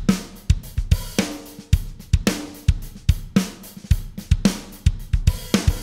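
Recorded drum kit playing a steady groove, with kick, snare, hi-hat and cymbals, heard through an SSL-style Wes Audio Dione VCA bus compressor. Its sidechain filter is set at 60 Hz, which lets the kick drum's low-end transient sneak through the compression.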